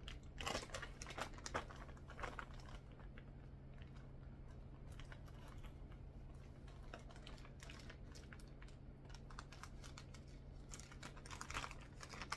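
Hands handling a plastic-wrapped package: scattered small clicks and crinkles, busier in the first couple of seconds and again near the end, over a steady low hum.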